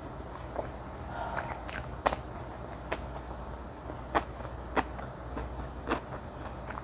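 Close-miked chewing of spicy malaxiangguo, with about half a dozen short, sharp, wet mouth clicks spread through it.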